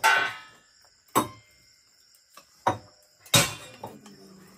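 Metal ladle knocking against the rim of a metal cooking pot while cooked rice is scooped out: a few sharp clanks with a short ring, about a second or more apart, the loudest near the end.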